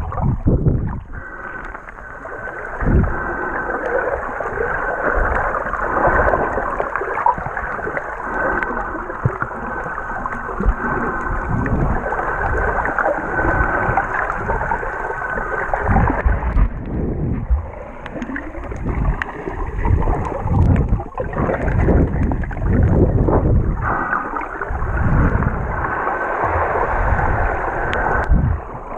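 Water heard underwater through a submerged camera: muffled sloshing and swirling with irregular low rumbles as the surge moves. A faint steady high whine comes in about a second in, drops out at around 16 seconds and returns near the end.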